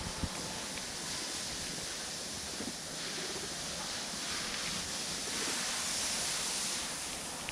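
Steady outdoor background noise, a wind-like hiss, with a few faint soft ticks and rustles.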